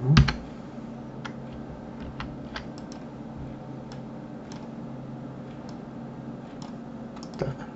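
Computer mouse and keyboard clicking: scattered sharp clicks over a steady low hum, with a louder thump just at the start.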